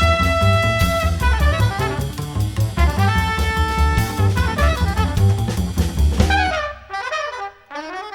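Jazz music: horns playing held notes and phrases over a walking bass and drum kit. About six and a half seconds in, the bass and drums drop away, leaving horn lines sliding up and down in pitch.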